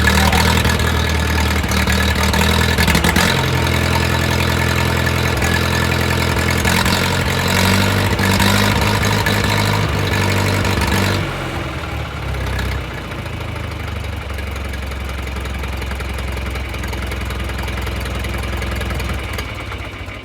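John Deere 3020 tractor's four-cylinder engine running steadily, not yet warmed up. It runs louder at first and turns clearly quieter about eleven seconds in.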